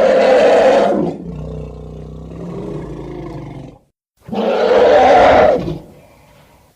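African bush elephant calling: a loud bright trumpet-like blast, then a lower, longer roaring rumble, then a second loud blast about four seconds in.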